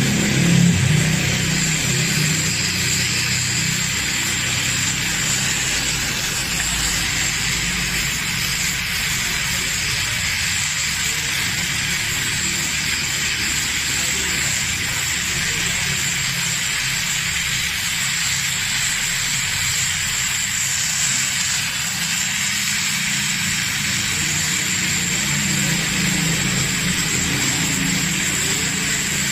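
LPG gas torch flame burning steadily with a constant hissing rush while aluminium is being welded with a filler rod.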